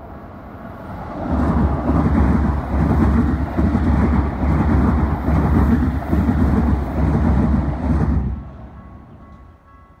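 A Keikyu line electric train passes at speed through a level crossing, its wheels clattering on the rails for about seven seconds before the sound falls away. The crossing's alarm bell rings faintly before and after the train.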